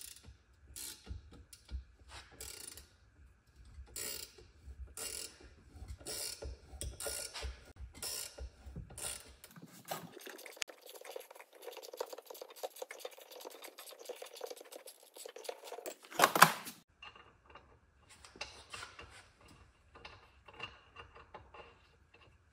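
Thread tap turned by hand, cutting tapered pipe threads into aluminum: irregular metallic clicks and scrapes of the tap and its handle. Midway there are several seconds of steadier scraping, then one loud metal clank, and the clicking resumes.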